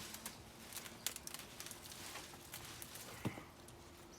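Soil being dug and rustled while sweet potatoes are pulled from a container of soil: faint scattered crackles, scrapes and small knocks, with one slightly louder knock a little past three seconds in.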